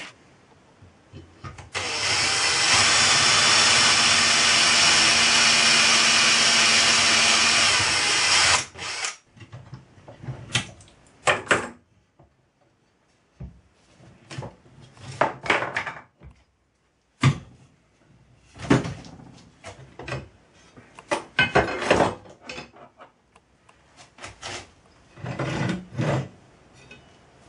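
Electric drill running steadily for about seven seconds, starting about two seconds in, while working aluminium angle. After it stops, scattered short knocks and clicks follow as the metal parts and hand tools are handled.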